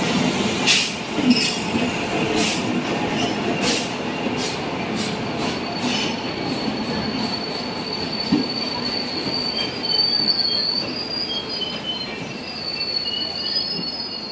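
Indian Railways express train rolling slowly past as it pulls out, over a steady rumble of wheels on rail. Sharp wheel clicks over rail joints come in the first few seconds. From about four seconds in, a thin high wheel squeal wavers on and off.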